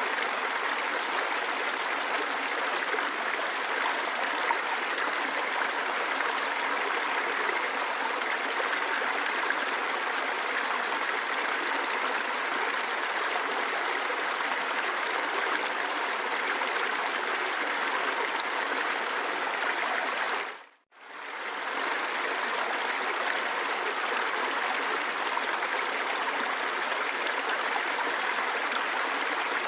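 Running water of a stream or waterfall, a steady rushing. About 21 seconds in it dips to silence for a moment and fades straight back.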